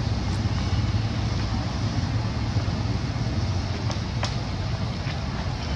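Steady low outdoor rumble and hiss, with a few faint clicks about four to five seconds in.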